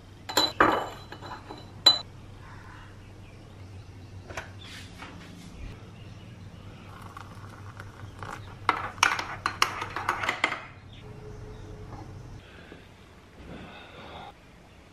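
A metal spoon clinks sharply against a glass coffee jar and a ceramic mug a few times near the start, each clink ringing briefly. Later, hot water is poured from a kettle into the mug for about three seconds, splashing onto the instant coffee.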